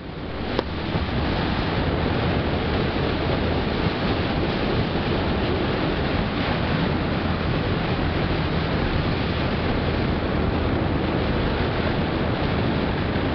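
Steady road and engine noise inside a moving car's cabin: a rushing hiss over a low hum, fading up over the first second, with one sharp click about half a second in.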